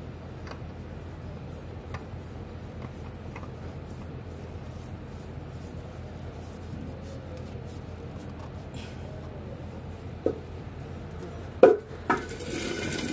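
New oil filter being spun onto a Toyota Fortuner engine by a gloved hand: faint scraping and clicking over a steady low hum. Near the end come a few sharp knocks, then a burst of rustling.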